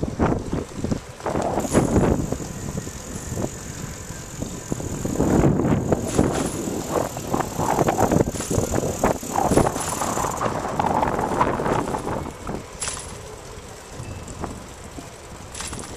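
A bicycle rattling and bumping over a rough city street as it is ridden, an uneven clatter of knocks and road noise that eases off near the end.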